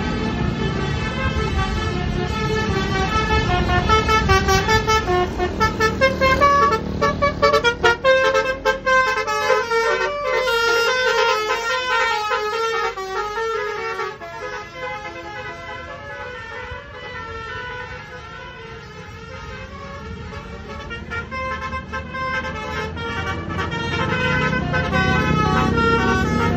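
Basuri musical multi-tone horn on a bus playing a tune of short notes stepping up and down, over the bus engine's low running. The horn is loudest in the first third, fades in the middle and swells again near the end, as the bus comes closer.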